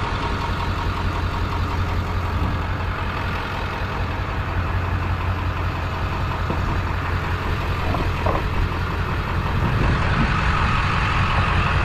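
A motor vehicle's engine idles steadily with a low hum, getting a little louder near the end.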